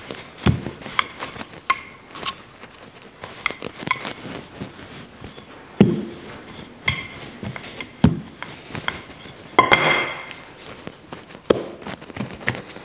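Wooden rolling pin rolling and working soft pastry dough on a floured benchtop, with irregular knocks and thumps as the pin and hands press and move the dough.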